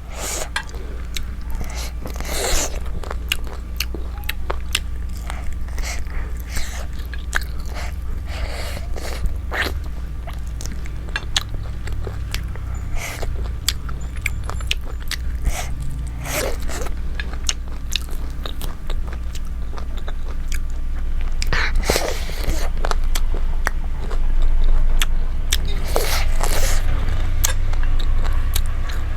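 Close-miked eating: steady chewing and biting, with crisp crunches and a few louder smacks spread through.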